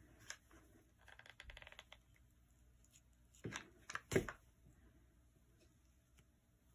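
A plastic hot glue gun being handled on a work table: a faint light rattle, then a few sharp clacks around the middle as it is lifted and set back down, the last clack the loudest.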